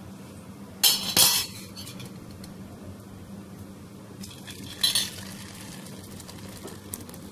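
Steel ladle clinking against stainless steel pots and a serving bowl: two sharp clinks about a second in and another near five seconds.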